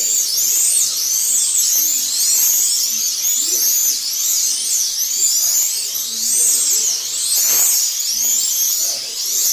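Several 1/32-scale Eurosport slot cars racing together, their small electric motors giving off overlapping high-pitched whines. The pitch rises and falls over and over, two to three times a second, as the cars power up and brake through the lap.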